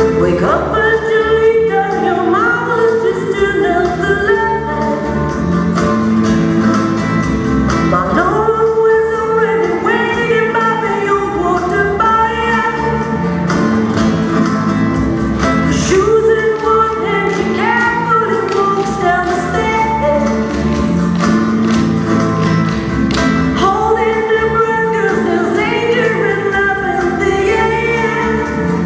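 Dance backing track: a song with a lead singer's voice over a steady beat, with a Latin flavour.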